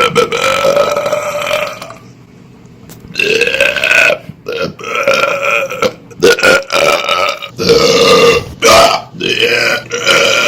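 A man belching loudly: one long drawn-out belch, a pause of about a second, another long belch, then a run of shorter belches one after another.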